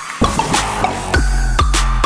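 Electronic background music with a deep bass, a steady beat and repeated falling sweeps.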